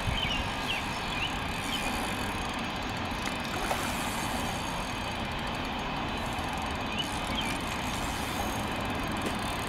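Steady rumble of distant traffic, with a hooked common carp swirling at the water's surface about four seconds in.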